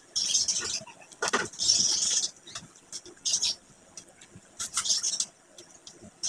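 Close-up eating sounds: wet chewing, lip smacking and sucking on boiled chicken eaten by hand, in short irregular bursts, with one longer slurping hiss about two seconds in.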